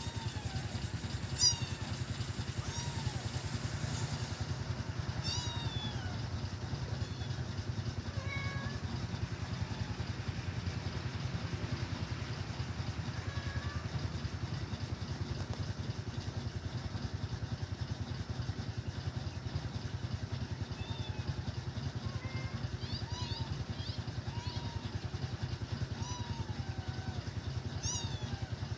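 Cat meowing repeatedly in short cries that fall in pitch, several in the first few seconds and more in the last third, over a steady low engine hum.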